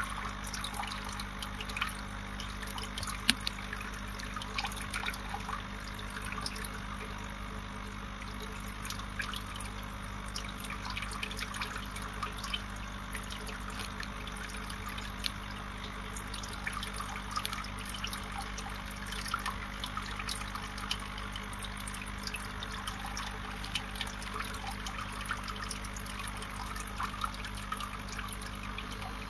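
Aquarium water trickling and bubbling steadily, a constant patter of small bubble pops and drips, over a low steady hum.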